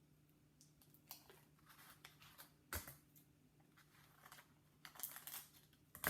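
Faint rustles and small clicks of a sheet of paper being handled and taped into a cone, over a steady low hum; the clearest click comes a little under three seconds in.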